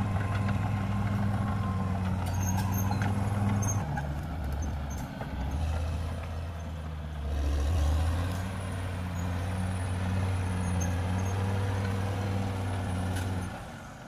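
Caterpillar D6R XL bulldozer's diesel engine running under load as the machine pushes soil and brush, its note dipping and recovering a couple of times. A few sharp clicks about two to three seconds in.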